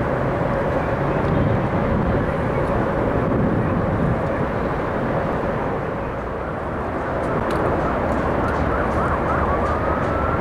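Steady rushing noise of a large passing vehicle, with a low tone sliding down a few seconds in and a faint whine rising near the end.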